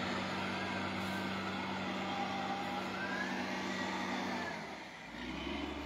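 Heavy snow-clearing vehicle's engine running steadily, its note dropping about four and a half seconds in to a deeper, lower hum.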